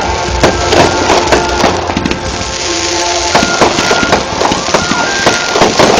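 Fireworks bursting and crackling in quick succession, many sharp bangs over the whole stretch, with music playing alongside.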